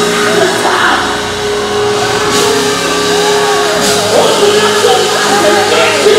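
Live gospel music: vocalists singing into microphones over a band, with a held steady note under the voices.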